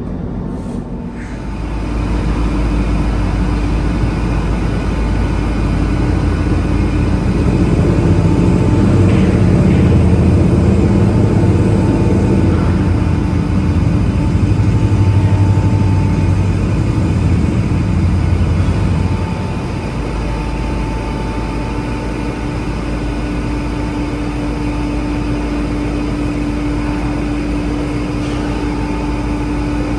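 Steady low engine and machinery drone on a ferry's enclosed car deck, with a couple of steady hum tones over it. A heavy engine nearby adds a louder rumble from about two seconds in, easing off a little after the middle.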